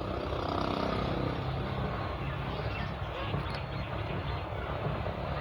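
Steady rumble of a train on the move, with a faint tone over it in the first two seconds or so.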